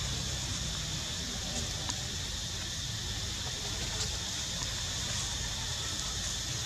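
Steady outdoor background: a constant high insect buzz over a low rumble, with a few faint ticks about two and four seconds in.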